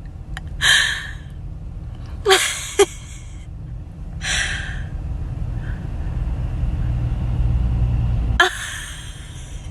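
A person's breathy gasps of laughter, about four short bursts, over a low rumble that stops suddenly near the end.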